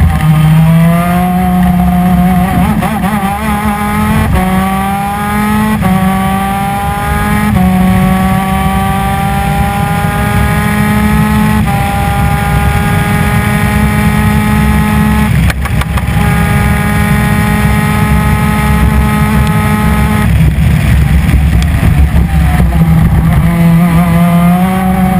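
PVP 250 cc two-stroke twin-cylinder superkart engine at racing speed. Its pitch climbs through each gear and drops back at about five upshifts in the first twelve seconds, then holds nearly steady at high revs. About twenty seconds in it falls off and wavers.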